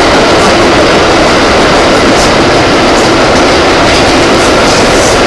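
NYC Low-V subway car running at speed through a tunnel, heard from inside the car: a loud, steady rumble of wheels on rail with scattered clicks over the rail joints.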